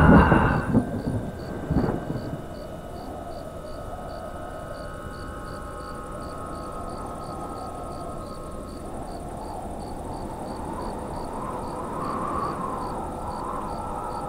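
Night ambience of crickets chirping evenly, about two to three chirps a second, over a steady low hiss. It opens on a deep boom that dies away within the first second, with a second short hit about two seconds in.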